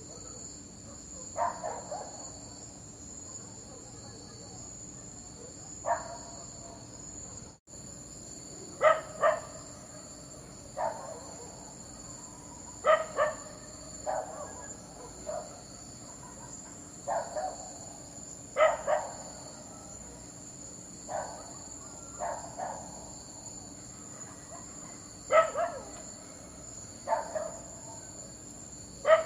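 A dog barking in short single and paired barks at uneven intervals, over the steady high chirring of crickets.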